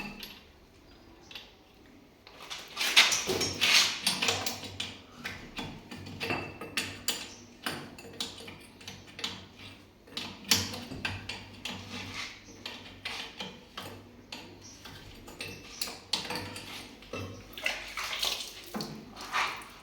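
Water sloshing and splashing, mixed with many irregular metallic knocks and clanks of tools and fittings, during work on a water-pipe valve.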